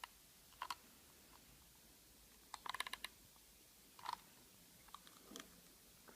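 Faint, scattered clicks and taps of small hard objects being handled: a single tap, then a quick cluster of clicks, then two more taps, against near silence.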